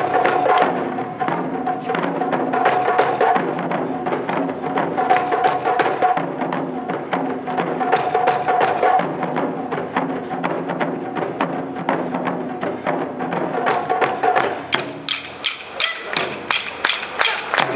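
Japanese taiko drum ensemble, barrel-shaped nagado-daiko on stands and drums carried on straps, playing a dense, fast rhythm with many sticks at once. About fifteen seconds in it thins out to sharp, evenly spaced strikes, several a second.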